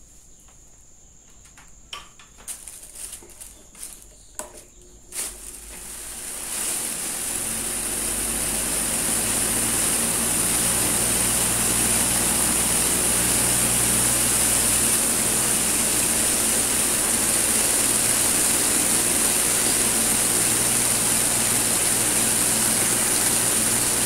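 Electric desk fan wrapped in a large plastic bag: a few small knocks and rustles, then about five seconds in the fan is switched on and spins up into a steady rush of air against the plastic over a low motor hum. It is running bagged to blow the dust loosened by the detergent spray off its blades into the bag.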